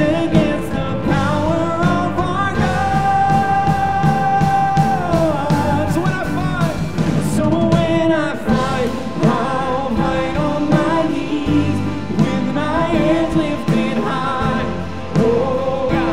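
Live worship band playing: several singers over electric guitar, keyboard and drums, with one long held vocal note a few seconds in.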